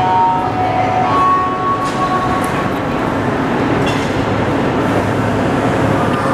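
Rubber-tyred MR-73 metro train running alongside the platform: a loud, even rumble with a couple of faint steady tones in the first two seconds.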